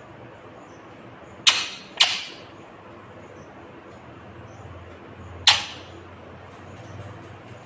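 Indian ringneck parakeet giving short, sharp screeches: two in quick succession about a second and a half in, and a third about five and a half seconds in.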